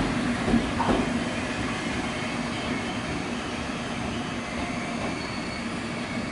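Train rolling slowly along the platform: steady wheel-on-rail noise with a low hum, a couple of knocks about half a second and a second in, easing slightly after that.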